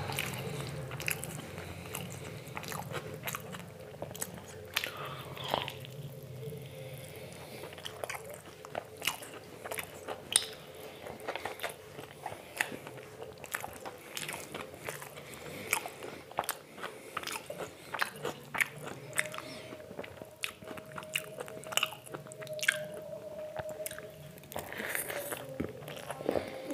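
Someone eating up close: chewing and biting, with many irregular wet clicks and crunches.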